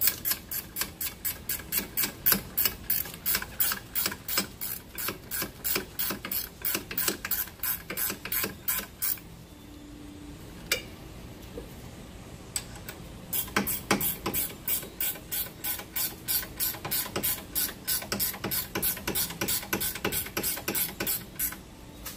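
Socket ratchet clicking in quick, even strokes, about four clicks a second, as it tightens the 15 mm rear brake caliper bracket bolts. It stops for about four seconds near the middle, then clicks on again.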